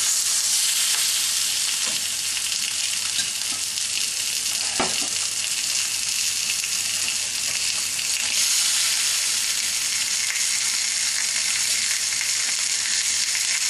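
Scarlet snapper fillets, just laid into a pan of hot olive oil, sizzling loudly and steadily.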